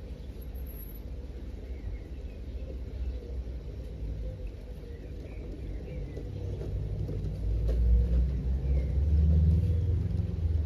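LGB G-scale model train running along the garden track, getting louder from about six seconds in as it approaches, with a low rumble. Faint bird chirps above it.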